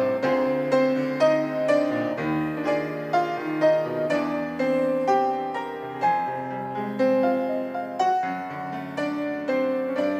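Piano playing a slow, gentle instrumental introduction to a hymn, single notes and chords struck about twice a second with no voice yet.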